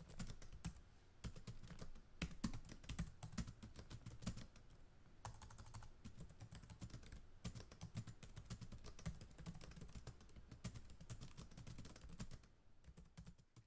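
Computer keyboard typing: a long run of quick, irregular key clicks with soft thumps underneath.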